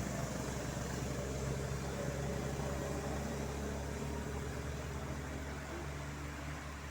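Motor vehicle engine running steadily with a low hum, slowly getting quieter.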